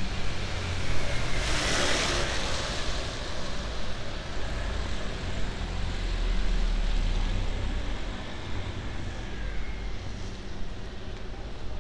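City street traffic on wet pavement: a brief hiss of tyres about two seconds in, then a low vehicle rumble that swells near the middle and fades.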